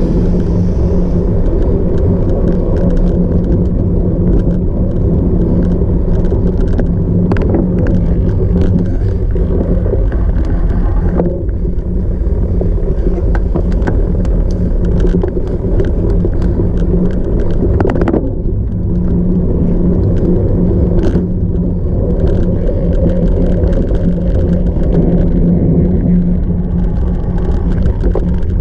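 Cyclocross bike ridden over rough off-road ground: a loud, steady rumble with a constant low hum and scattered sharp clicks and rattles, several of them standing out around the middle of the stretch.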